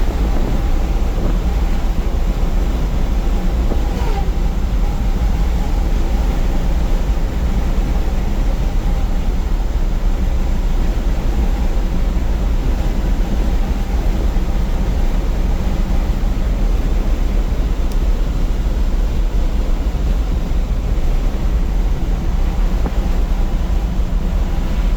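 Steady engine and road noise heard from inside the cab of a 1955 Chevrolet 3100 pickup driving along, a constant low rumble.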